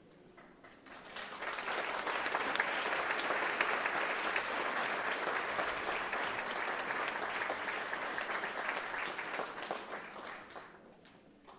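Audience applauding, swelling about a second in, holding steady, then dying away near the end.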